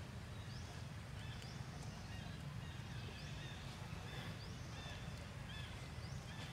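Outdoor ambience: a steady low rumble with short, high, rising chirps repeating about once a second.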